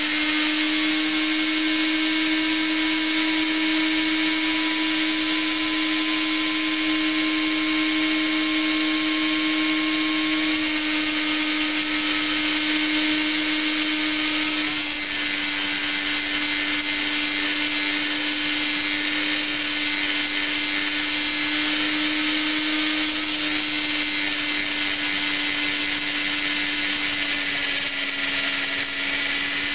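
A Stern rotary tool held in the lathe's toolpost runs at a steady high whine as its small grinding stone grinds the bore and outside of a pipe section turning in the lathe chuck. This is finish-grinding to smooth the surface. The pitch sags slightly twice, about halfway through and near the end.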